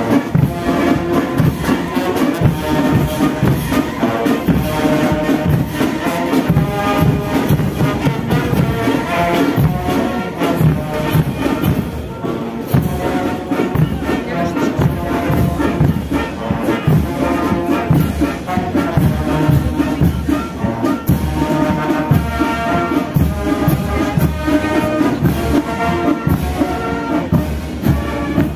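Massed military brass band playing while marching past: trumpets, trombones and tubas over a steady bass drum beat.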